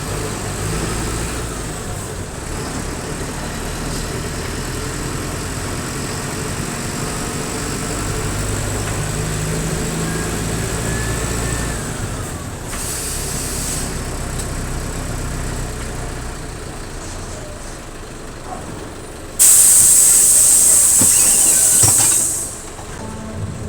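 Mercedes-Benz OF-1722M bus's diesel engine running under way, with a faint whistle that rises and falls, then easing off as the bus slows. There is a short hiss of compressed air about halfway through, and a loud air-brake hiss lasting about three seconds near the end.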